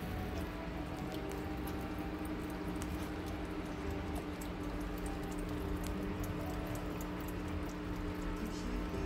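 Cat lapping water from the surface of a turtle tank: a quick run of small wet clicks over the steady hum of the aquarium's filter equipment.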